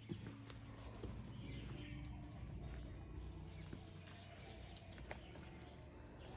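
Faint footsteps of a hiker walking on a dirt trail, a few soft scattered steps over a low rumble, with a steady high-pitched tone in the background.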